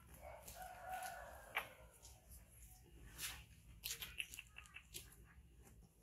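A rooster crows once, faintly, about half a second in, a single held call lasting about a second. Soft clicks and rustles follow.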